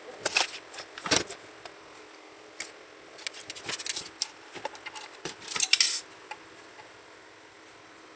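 Partly disassembled Bluetooth speaker being handled: its hard plastic housing and metal frame give scattered clicks and knocks, with a short metallic jangle about five to six seconds in.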